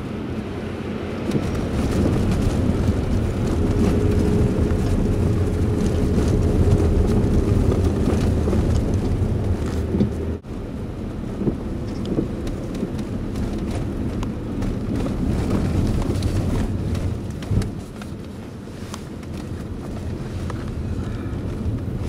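Engine and tyre noise heard inside a car's cabin as it drives slowly on a wet road, a steady low rumble with road hiss and a short dropout about ten seconds in.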